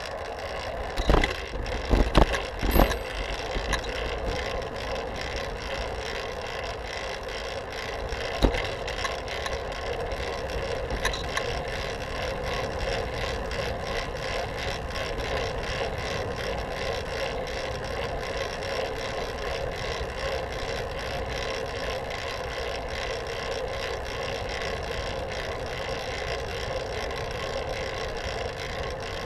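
Fixed-gear bicycle riding along pavement, with a steady rolling hum from the tyres and drivetrain. A cluster of sharp knocks comes about one to three seconds in as the bike jolts over bumps, and one more knock comes about eight seconds in.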